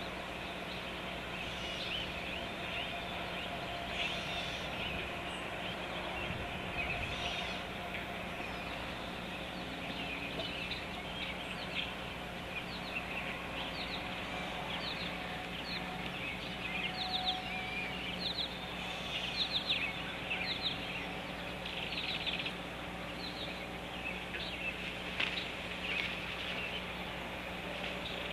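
Birds chirping: many short, quick calls, coming thicker through the second half, over steady outdoor noise and a low steady hum.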